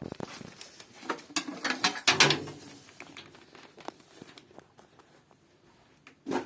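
Clicks, knocks and light rattles of small hard objects being handled, densest from about one to two and a half seconds in, with one louder knock near the end.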